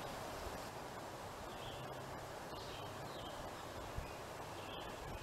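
Quiet woodland ambience: a steady soft hiss with a few faint, short bird calls scattered through it.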